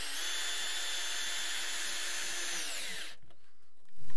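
Cordless drill boring into an aerated concrete block, a steady motor whine that winds down and stops about three seconds in. A louder noise starts right at the end.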